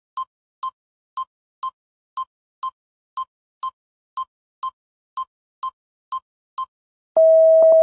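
Countdown timer sound effect ticking as tick-tock pairs, one pair each second. About seven seconds in, a steady electronic buzzer tone sounds as the time runs out.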